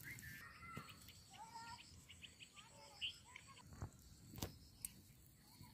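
Faint outdoor ambience with birds chirping in short, bending calls, and a few sharp soft clicks in the second half.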